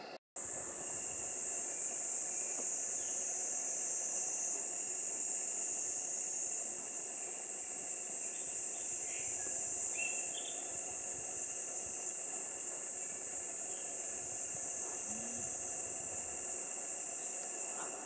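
Cicadas in the forest canopy buzzing in a steady, high-pitched chorus that starts abruptly just after the beginning, with a few faint bird chirps.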